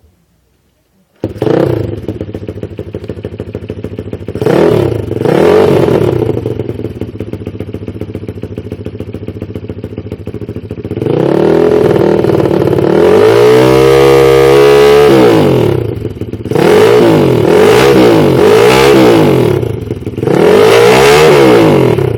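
1971 Honda SL70's small single-cylinder four-stroke engine through a Supertrapp exhaust with six discs. It fires up about a second in, idles with two quick blips of the throttle, is held at high revs for about five seconds with the pitch climbing, then is revved up and down several times near the end.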